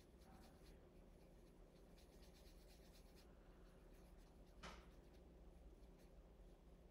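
Near silence with faint scratchy rubbing of a watercolor brush working paint, and one light tap about two-thirds of the way through.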